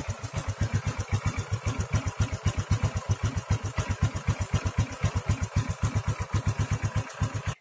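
Honda RS 125 Fi's air-cooled single-cylinder four-stroke engine idling, heard close up with an even beat of about eight firings a second. The owner finds it sounds a little off, with the oil long overdue for a change and the cam chain tensioner spring and valve clearance due for attention.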